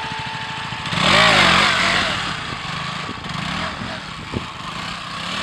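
Motorcycle engine running at low speed, revved once about a second in with a rise and fall in pitch, then settling back to steady low running.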